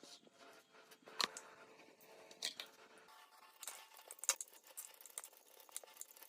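Faint, scattered clicks and light taps of small parts being handled during work on an old hydraulic jack, over a faint steady hum that stops about halfway through.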